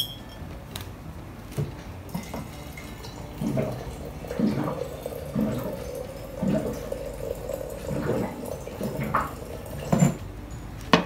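Hot water running from a water dispenser into a container, with a gurgle about once a second. There is a sharp click at the very start.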